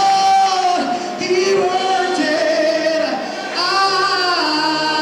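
A 100-voice gospel mass choir singing in a church, holding long notes in several parts that move to a new chord about every second.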